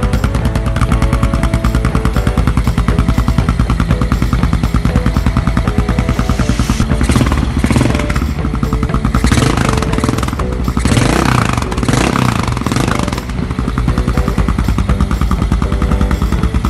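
Yamaha XT 600 E's single-cylinder engine running and revved up and down about three times in the middle, over background music with a steady beat.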